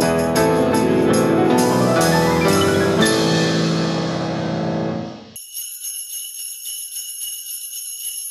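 Background music: a melodic track with bell-like, chiming notes that fades out about five seconds in, giving way to a steady, high jingling shimmer with nothing underneath.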